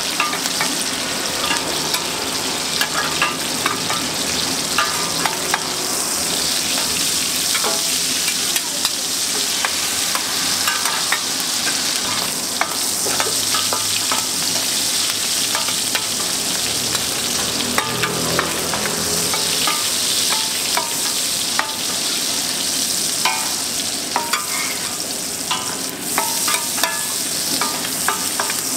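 Shrimp sizzling in hot oil on a wide, flat metal pan, a steady hiss, while two metal spatulas scrape and clink against the pan in frequent short clicks.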